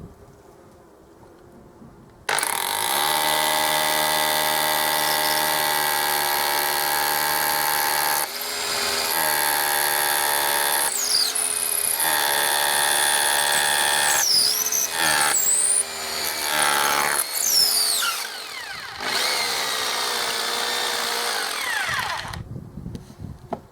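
SDS hammer drill boring through a brick, starting about two seconds in and running for about twenty seconds. Its motor speed dips and rises several times in the second half, and it stops shortly before the end.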